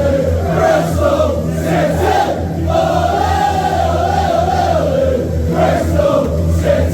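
Large football crowd singing a chant together, many voices carrying one wavering tune.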